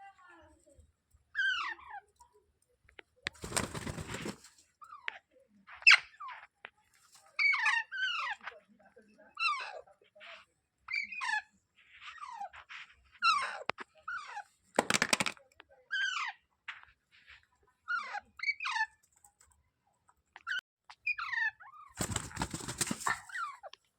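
Pet green parrot giving short, repeated chattering calls, roughly one a second, each sliding in pitch. Three short, loud bursts of rustling noise break in, one early, one midway and one near the end.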